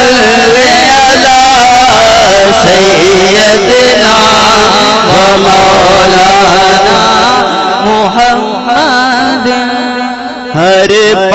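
Male voice singing a Punjabi naat, amplified, in long ornamented gliding lines over a steady low held drone. The singing eases off briefly near the end, then resumes strongly.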